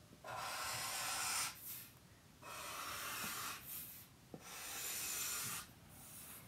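Black felt-tip marker drawn across paper taped to a drawing board, three long rubbing strokes, each a second or more, as the curved outline of a cartoon bear's body is drawn.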